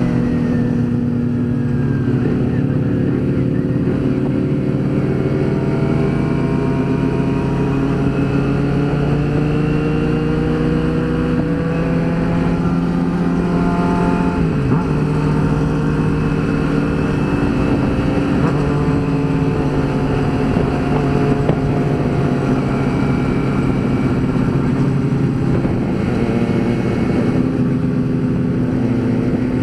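Kawasaki Ninja 250R's parallel-twin engine running under way, heard through a microphone inside the rider's helmet. Its pitch climbs slowly and then drops twice, about twelve and fifteen seconds in, as the rider shifts gears.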